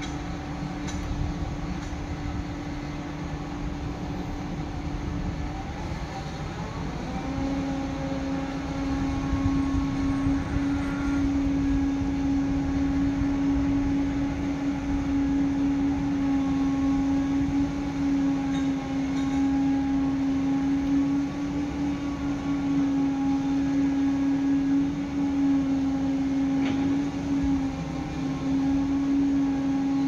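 Heavy diesel machinery running steadily: a concrete mixer truck and a Volvo crawler excavator, with a strong steady drone over a low rumble. About seven seconds in the drone shifts slightly in pitch and grows louder, and stays there.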